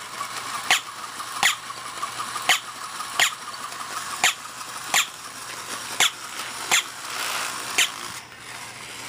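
Battery-powered walking toy dog in action: a small motor whirring under a string of short, sharp sounds that come about once a second in a slightly uneven rhythm.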